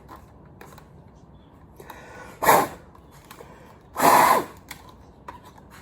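Two short, hard puffs of breath, about a second and a half apart, the second longer, blown into a Dyson vacuum head's electrical connectors to clear the dust out of them.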